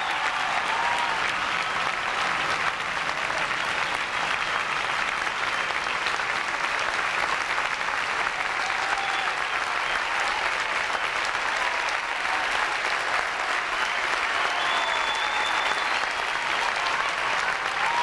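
Large audience applauding steadily, a long unbroken clapping.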